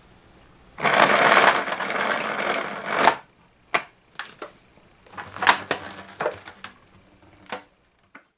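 A dense rattling, crunching noise for about two seconds, stopping suddenly, then a series of separate clicks and knocks, as of hard parts being handled.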